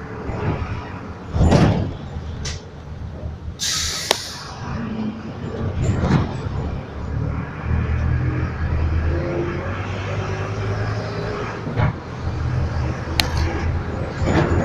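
Inside a city bus on the move: the engine runs with a low steady hum while the body knocks and rattles now and then, and there is a short burst of air hiss about four seconds in.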